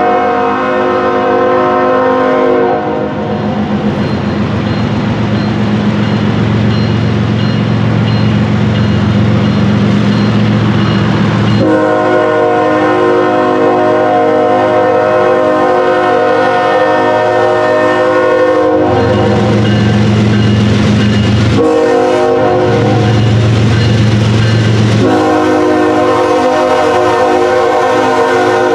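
CSX diesel freight locomotive's air horn sounding the grade-crossing signal as it approaches: a blast that cuts off a couple of seconds in, then a long blast, a short one and another long one. The locomotive's diesel engine rumbles in the gaps between blasts.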